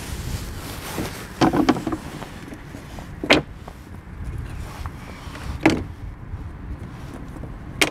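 Thin painted strips being lifted and set back down on wooden decking: a few brief taps and knocks spread across several seconds, over a steady low rumble.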